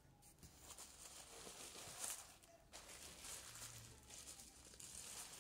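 Faint rustling of a plastic trash bag and denim as the jeans are handled and smoothed flat, in soft irregular swishes, one a little louder about two seconds in.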